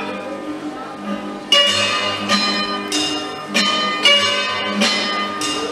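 Folk dance music: sharp, ringing melody notes over a steady low pulse, growing louder about a second and a half in.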